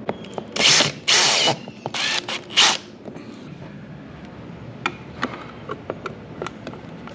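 Power drill run in five short bursts, drilling mounting holes, in the first three seconds. After that come scattered small clicks and taps.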